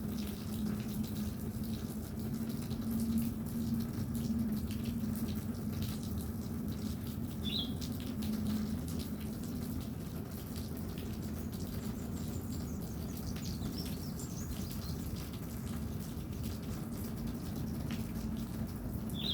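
Steady background noise with a constant low hum, broken by a couple of short high chirps, one about seven and a half seconds in and one near the end.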